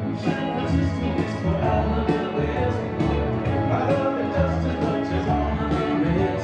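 Rock-and-roll music with a steady beat, bass and guitar, and a singing voice.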